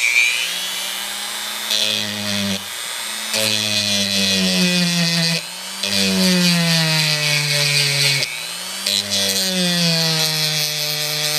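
Dremel rotary tool running with a bit against a die-cast metal car body, grinding the wheel well. The motor's pitch sags and recovers several times as the bit is pressed on and eased off, over a gritty grinding hiss.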